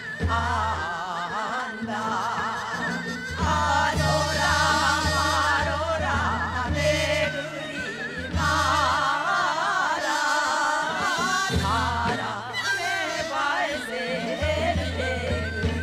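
A group of women singing a Korean folk song (minyo) into microphones, with strong wavering vibrato, over a recorded accompaniment with a bass line that drops out now and then.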